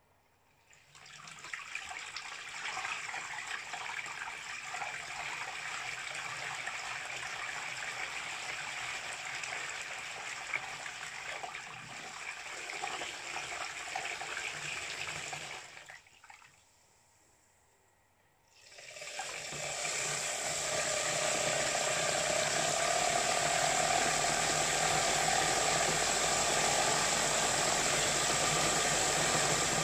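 A 3D-printed centrifugal water pump, driven by a 24 V DC drill motor run on 12 V, churns and splashes water, with the motor's whine on top. It runs for about fifteen seconds, stops for a few seconds, then starts again louder, its whine rising in pitch as it speeds up.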